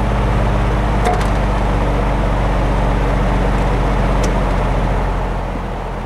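Vintage metal-bladed Lakewood box fan running on high, heard close to its motor: a steady motor hum with the rush of air, running quietly now that its long-dry bearings have been oiled. About five seconds in it is switched off and the sound drops as it starts to spin down.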